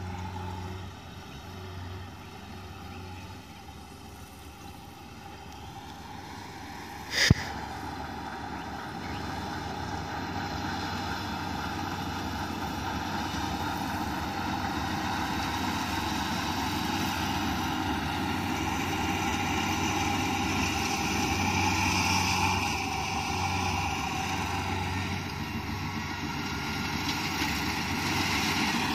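Combine harvester running as it cuts rice, a steady engine hum that grows gradually louder as the machine comes closer. A single sharp click about seven seconds in.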